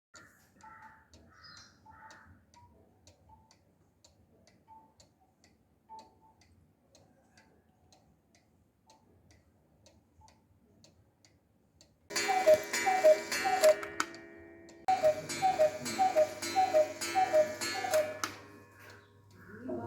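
Mechanical pendulum cuckoo clock ticking faintly and evenly, about twice a second. About twelve seconds in it starts its louder two-note cuckoo calls, repeated over and over with a short break partway through.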